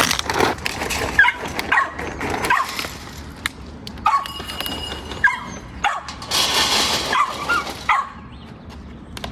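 Dogs barking and yipping in short, excited calls, about ten spread through, as they wait to be fed.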